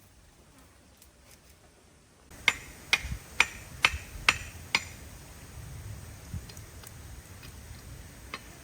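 A quick run of six sharp knocks, about two a second, starting about two seconds in, then a few faint ticks.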